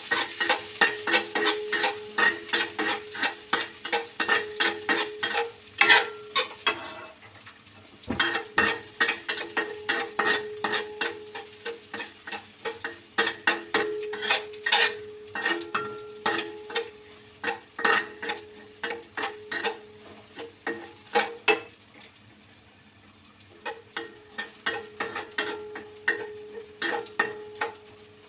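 Metal spatula scraping and tapping against a stainless steel wok in quick, rhythmic strokes, a few a second, while minced garlic sizzles in hot oil. The stirring breaks off briefly twice.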